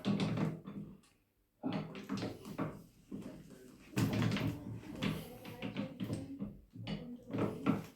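Irregular knocks and clatter of metal tools and objects being handled, with a brief pause about a second in.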